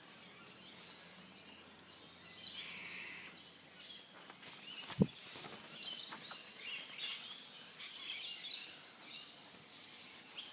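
Birds chirping in short, scattered high calls, busier in the second half, with one sharp knock about halfway through.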